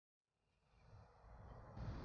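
Dead silence, then low background rumble fading in and growing steadily louder, with a step up in level near the end.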